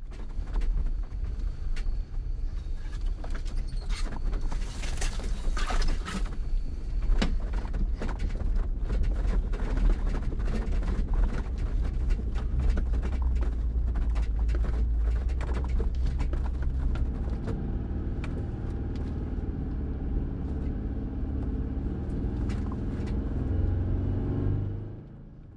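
Jeep Gladiator Rubicon crawling along a rough wooded trail: a steady low engine and tyre rumble with many sharp clicks and knocks over the first two-thirds, settling into a steadier engine note later on.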